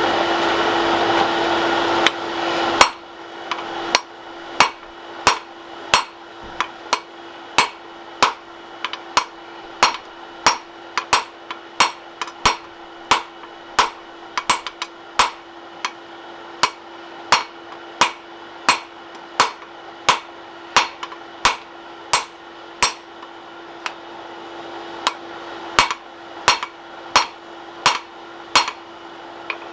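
A steady rush of forge noise cuts off nearly three seconds in. A hand hammer then strikes hot high-carbon steel bar stock on the anvil at about one and a half blows a second, each blow a sharp ringing clang, drawing the bar down, with a short pause near the end. A low steady hum runs underneath.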